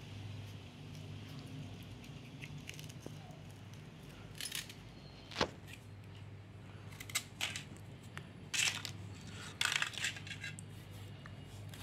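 Crisp fried papad snacks crunching and crackling in a string of short, sharp crackles from about four seconds in until near the end, over a steady low hum.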